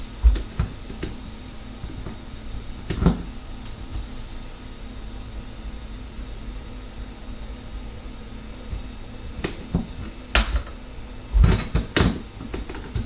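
Scattered sharp clicks and knocks of hose-clamp pliers gripping and squeezing a metal hose clamp on a dishwasher's drain-hose connector, with one louder click about three seconds in and a cluster of clicks near the end.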